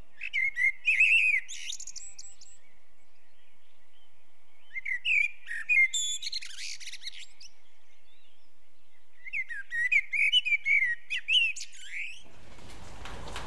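A songbird singing in three bouts of quick chirps and warbling phrases, a few seconds apart, over a faint steady hiss. A burst of noise comes in near the end.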